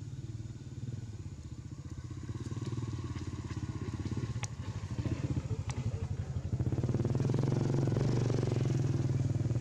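An engine running steadily with a fast, even pulsing, growing louder over the second half. Two sharp clicks come through about four and a half and five and a half seconds in.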